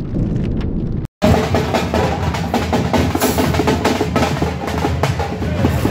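A low rumble cuts off abruptly about a second in, giving way to a troupe of tamate frame drums beaten in a fast, dense rhythm.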